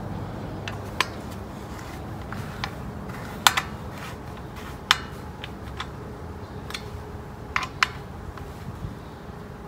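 Hex key clicking and tapping against the mounting screws and radiator guard as the screws are fitted and turned by hand: scattered sharp metallic clicks, the loudest a few seconds in and a close pair near the end, over steady low background noise.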